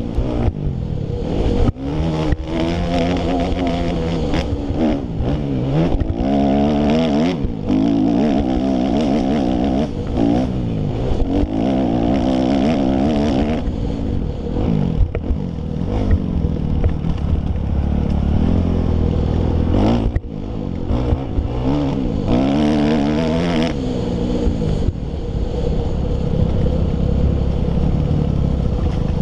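2005 Kawasaki KX250F four-stroke single-cylinder engine revving up and falling off again and again as the dirt bike accelerates, shifts and slows through a motocross track's turns. Wind and rattling are mixed in, with a few sharp knocks.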